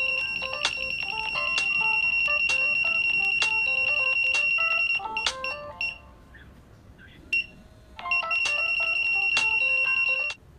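Piezo buzzer of a breadboard mobile-phone detector sounding a steady high beep, set off by the phone's signal during an incoming call, with the phone's ringtone melody playing alongside. The sound stops about five seconds in, returns about three seconds later, and cuts off near the end.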